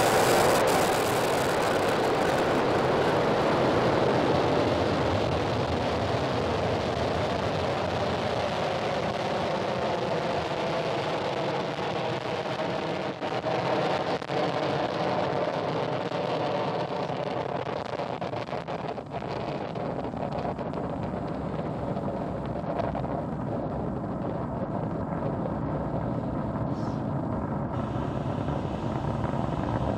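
The nine Merlin engines of a Falcon 9 first stage firing during liftoff and early climb: a loud, steady rushing noise whose high end slowly fades as the rocket climbs away.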